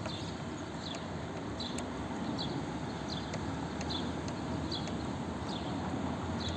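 Steady outdoor background noise, with a short high chirp repeating roughly every second.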